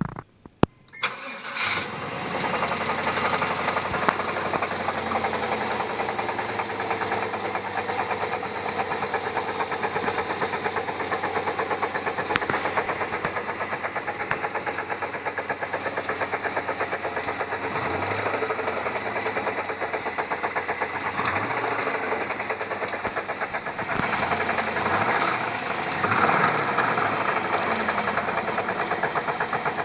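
1996 Chevrolet Tahoe's Vortec 5.7 L (350) V8: a couple of clicks, then the engine starts within a couple of seconds and runs with a steady, regular knock, which the owner takes for a rod knock. The engine swells a few times in the second half as the throttle is blipped.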